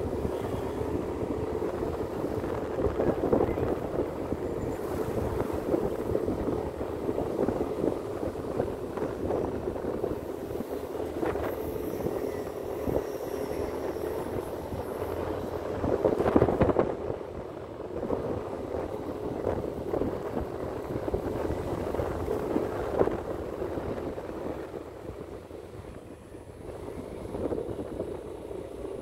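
Yamaha motor scooter's engine running steadily while riding, with wind buffeting the microphone and a louder gust about halfway through.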